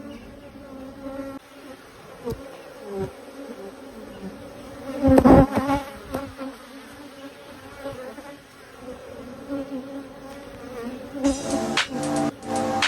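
Insect-like buzzing hum that swells louder about five seconds in; music comes in near the end.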